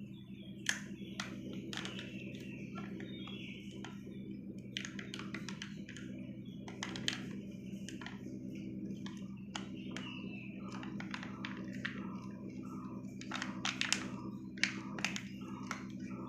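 Light clicks, taps and crinkles of a chocolate surprise egg's wrapper and contents being handled, scattered irregularly over a steady low hum.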